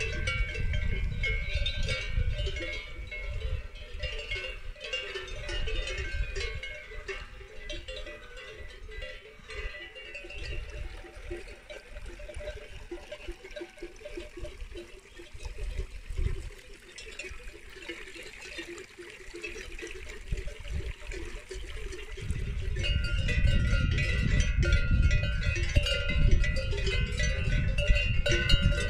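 Bells on grazing livestock clanking and ringing irregularly. A low rumble comes in at the start and again about two-thirds of the way through.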